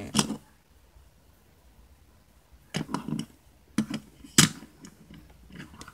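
Handling noise from a die-cast metal toy car moved about by hand on a tiled floor: a handful of sharp, irregular taps and clicks, the loudest about four and a half seconds in.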